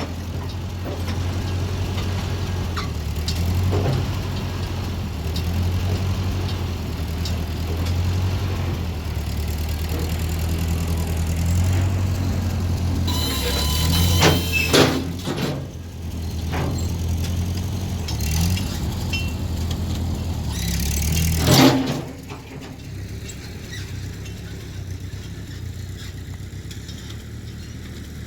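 Loader engine running at steady revs while lifting a heavy log with tongs, with a few sharp metal clanks partway through. Near the end the engine drops to a quieter, lower run.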